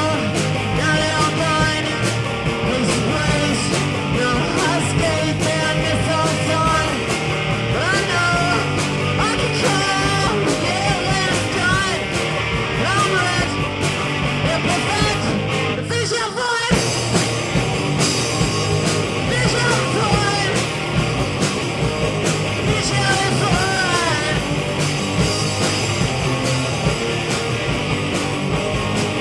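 Live rock band playing in a room: drum kit with cymbals, electric guitar and vocals, loud and continuous. The sound drops out for a moment a little past halfway.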